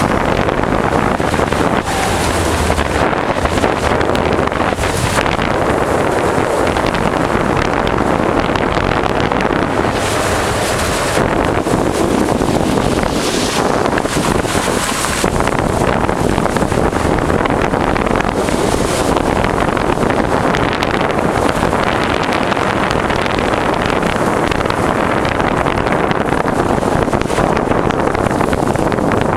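Loud, steady rush of wind on the microphone, its hiss swelling and fading every few seconds.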